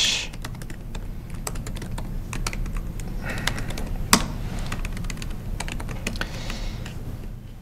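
Typing on a laptop keyboard: quick, irregular key clicks, with one sharper, louder key strike about four seconds in, over a low steady hum.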